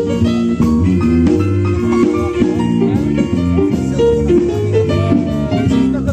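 Small jazz combo of piano, violin, bass and drum kit playing a swinging blues, with a quick run of notes over the walking rhythm section.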